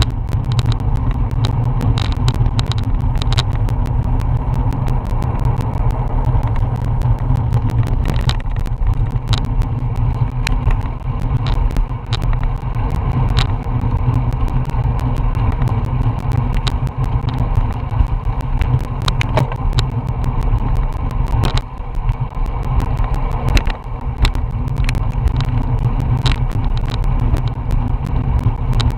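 Wind buffeting a bike-mounted Garmin VIRB action camera's microphone while cycling at about 19 mph, a loud, steady low rumble. Frequent small clicks and rattles from the bike going over the cracked road surface are heard throughout.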